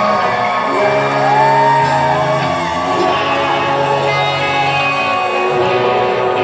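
Live rock band playing through a hall PA: electric guitar over sustained bass notes, with shouts and whoops rising over the music.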